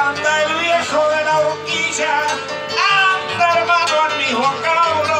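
Acoustic guitar playing the accompaniment for a payada, the improvised sung verse of a gaucho payador, with a singing voice over it.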